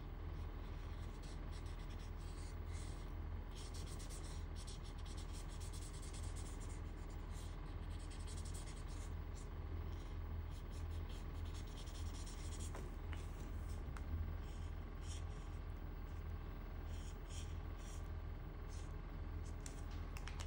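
Ohuhu alcohol marker rubbing on drawing paper in many short repeated strokes as an area is filled in, over a steady low hum.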